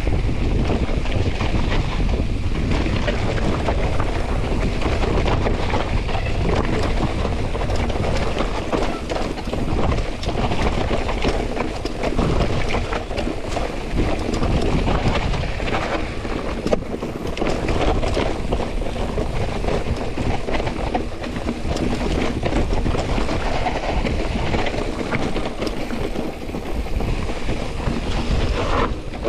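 Wind rushing over the camera microphone as a hardtail cross-country mountain bike rides over rough, wet trail, with a steady stream of small rattles and knocks from the bike.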